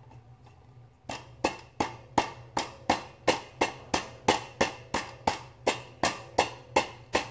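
Knife chopping on a cutting board: even, sharp strokes about three a second, starting about a second in.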